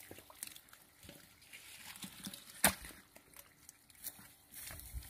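Bare hands digging and squelching in wet mud, with small scattered clicks and one sharp knock about two and a half seconds in.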